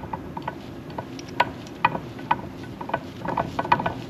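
Transmission gears being turned by hand in their housing, the gear teeth clicking against each other as they mesh: sharp metallic ticks with a short ring. They come singly about every half second, then in a quick cluster near the end.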